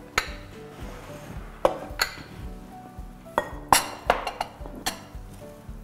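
Metal serving spoon clinking and scraping against a white ceramic bowl, about eight sharp separate clinks, as tabbouleh is spooned out into a glass bowl. Background music plays underneath.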